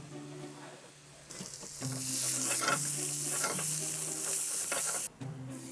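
Diced onion sizzling in hot oil in a frying pan, stirred with a silicone spatula that scrapes the pan, as the onion base of an aderezo starts to cook. The sizzle comes in about a second in and cuts off shortly before the end.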